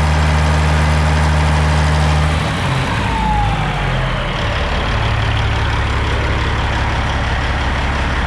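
Caterpillar 6NZ inline-six diesel running steadily at raised idle, then easing down to a lower, steady idle a couple of seconds in.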